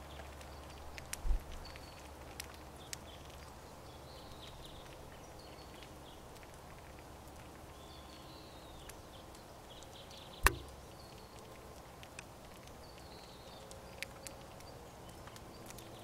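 Crossbills cracking sunflower seeds at a tube feeder, heard as faint, scattered sharp clicks, with short chirping calls throughout. A low thump comes about a second in, and one loud sharp knock about ten and a half seconds in.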